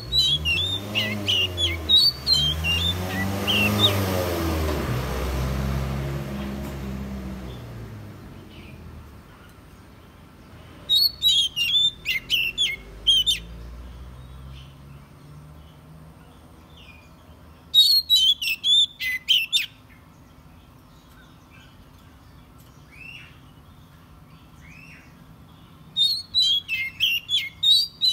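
Oriental magpie-robin singing in four short bursts of quick, varied whistled phrases, spaced several seconds apart. Over the first several seconds a motor vehicle passes, its engine growing louder and then fading.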